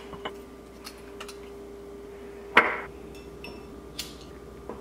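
Glass candle holder and its glass lid clinking and knocking on a hard countertop: a few light clicks, then one sharper clink about two and a half seconds in, over a faint steady hum.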